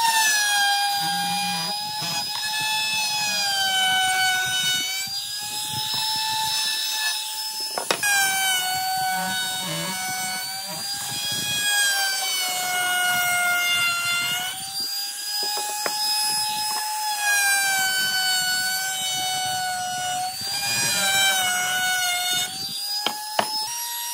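A power tool's electric motor whining steadily, its pitch dipping and recovering every few seconds as the load changes, with a few sharp clicks.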